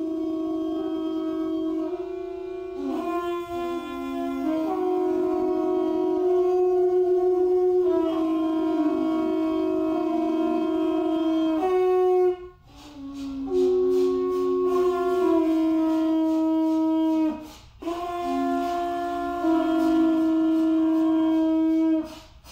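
Conch shell trumpets blown together by an ensemble, holding long overlapping notes at two or three pitches that shift every few seconds. The sound breaks off briefly about halfway through and again a few seconds later, and stops short near the end.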